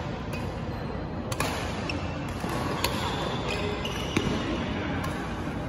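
Badminton rackets striking a shuttlecock during a rally: three sharp smacks, about a second and a half apart.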